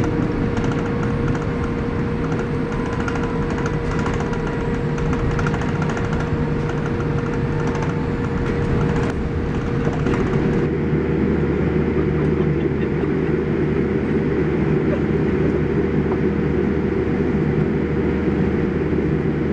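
Steady cabin noise inside a Boeing 787-8 airliner, from its Rolls-Royce Trent 1000 engines and air systems, with a constant hum. About ten seconds in, the sound changes abruptly to a deeper, heavier rumble.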